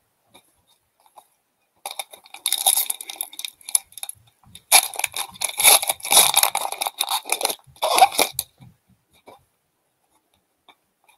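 Foil hockey card pack being torn open and crinkled by hand. Two bouts of crackling: a short one about two seconds in, then a longer one from about five seconds in.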